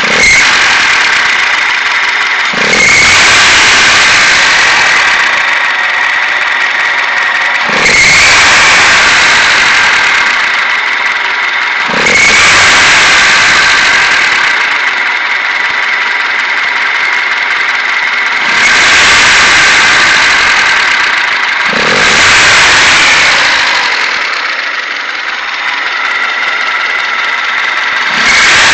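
A continuous high-pitched mechanical squeal over a running engine, swelling louder in surges every few seconds.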